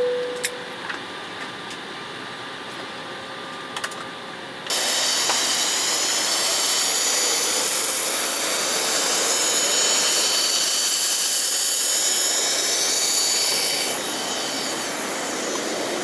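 An aircraft cabin chime tone fades and a few small clicks follow. About five seconds in, the sound cuts to a loud, steady jet whine on the airport apron: a rushing noise with several high-pitched whining tones over it, easing slightly near the end.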